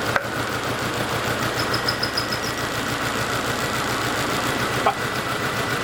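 Volkswagen Passat 1.8T four-cylinder turbo engine idling roughly with a misfire. One cylinder's ignition lead is pulled and the running does not change, a sign that this cylinder is already not firing.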